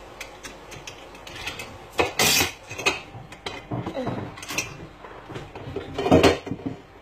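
Dishes and cutlery knocking and clinking in a kitchen sink as they are washed by hand with a sponge, with many small clicks and two louder clatters, one about two seconds in and one near the end.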